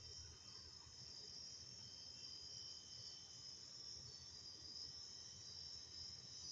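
Faint, steady high-pitched chirring of insects over a low hum; no compressor start is heard.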